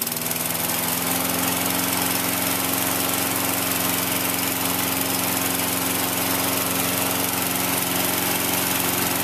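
Petrol walk-behind lawn mower engine running steadily, just after catching on a pull start.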